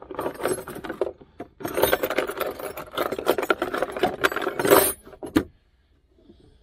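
Hands rummaging in a plastic storage compartment: loose tools clinking and rattling, gloves rustling, and items knocking on the plastic. It stops about five and a half seconds in.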